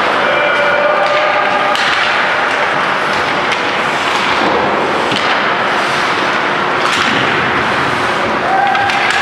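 Ice hockey play in an echoing arena: a steady wash of skates on the ice, broken by sharp clacks and thuds of sticks, puck and boards, with short shouts near the start and near the end.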